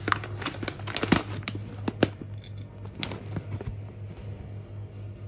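A foil-lined plastic coffee bean bag being pulled open and handled: crinkling and a few sharp crackles over the first three seconds or so, then quieter rustling. A steady low hum runs underneath.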